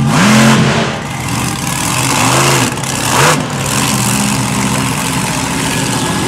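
Monster truck engine revving up and backing off in several short blips, then holding a fairly steady high rev.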